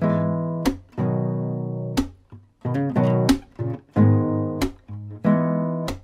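Closing music of strummed acoustic guitar chords, some left ringing for about a second, others struck in quick succession.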